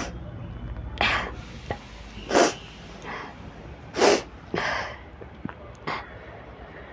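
A woman sneezing several times in quick succession, each sneeze a short sharp burst, with sniffs and breaths in between; the sneezes are set off by sniffing chikni powder.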